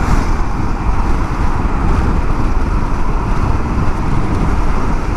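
Steady rush of wind and road noise from a Vespa scooter riding along at speed.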